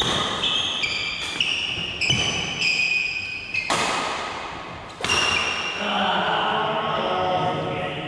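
Badminton rally: several sharp racket strikes on the shuttlecock, a second or so apart, mixed with high squeaks of shoes on the court floor.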